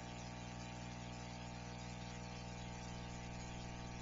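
Steady electrical hum with a layer of hiss, unchanging throughout: a fixed camera's audio picking up its own electronics rather than any sound from the volcano.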